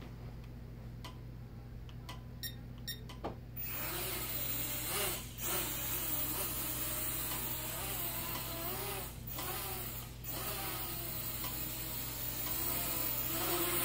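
Syma X11 mini quadcopter's motors and propellers spinning up about three and a half seconds in, after a few faint clicks, then buzzing with a pitch that rises and falls as the throttle changes. The buzz drops out briefly three times.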